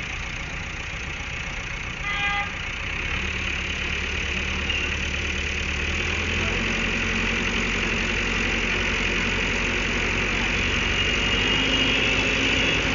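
Heavy diesel engines running under load, slowly getting louder, with the pitch stepping up about three seconds in and again near the end: a backhoe loader pushing with its bucket against a loaded truck stuck in mud.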